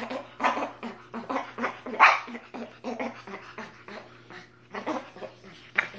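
Spider monkey and capuchin making rapid short grunting and squeaking calls while they wrestle, several a second, loudest about two seconds in.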